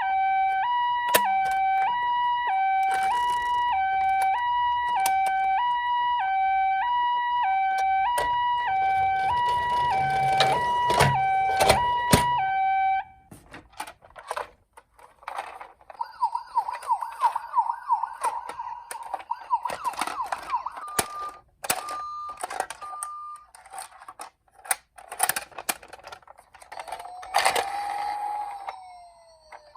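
Japanese ambulance two-tone siren, a high and a low note alternating about every two-thirds of a second, with clicks and knocks over it. It cuts off suddenly about 13 seconds in, leaving scattered clicks, knocks and brief wavering tones.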